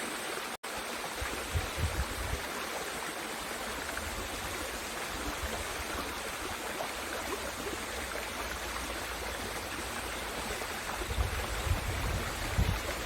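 Mountain stream water rushing steadily over rocks. A few low rumbles come in about two seconds in and again near the end.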